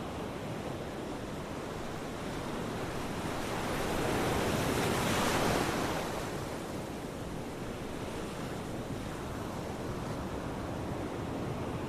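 Ocean waves washing onto a shore, a steady rushing with one wave swelling and breaking about halfway through before it fades back.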